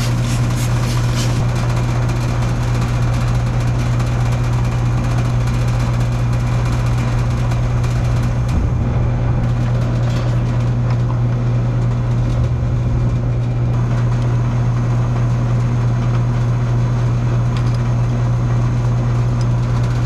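Steady, loud low hum of nearby running machinery, with a few squirts from a hand spray bottle in the first second.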